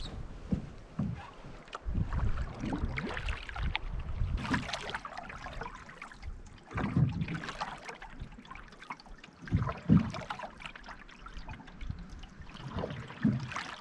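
Canoe paddling on a lake: paddle strokes in the water with drips and trickles, swelling every two to three seconds, over a low rumble of wind on the microphone.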